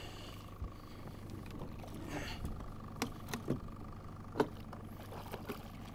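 A few faint, short knocks and clicks from an angler handling gear in a small aluminium boat while playing a fish on a fly rod, over a low steady hum.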